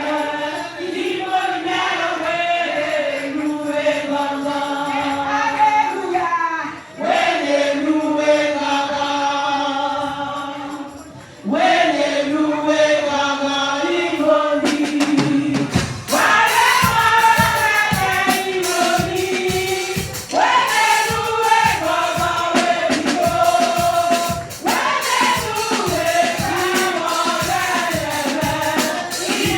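Gospel song sung by a choir of several voices in a church service. Held sung notes at first; a steady percussion beat comes in about halfway through.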